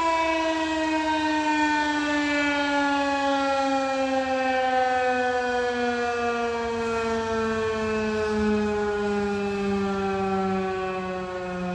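Federal Signal 2001-130 electromechanical outdoor warning siren winding down at the end of its noon blast, its single wailing tone sliding slowly and steadily lower in pitch.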